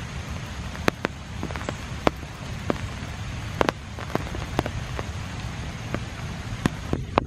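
Steady rain falling, with irregular sharp taps of larger drops striking close by.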